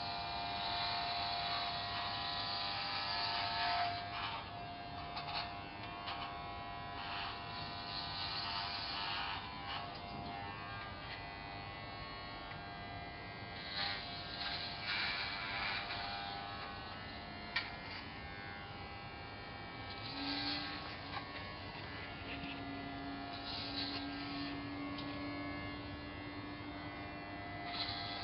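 Corded electric hair clippers buzzing steadily while shaving a head, the sound swelling into a hissier, fuller buzz every few seconds as the blades cut through hair. One sharp click partway through.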